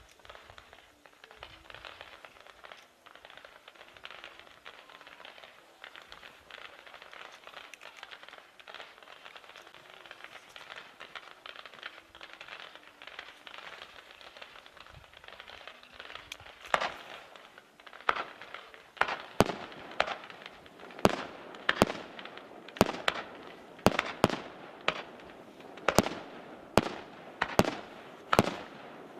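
Fireworks display: dense, fast crackling for the first half, then from about halfway a run of sharp bangs, roughly one a second, that are much louder.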